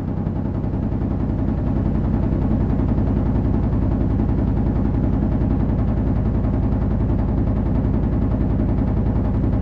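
Powered concrete breaker (jackhammer) running continuously, a loud, rapid, even hammering.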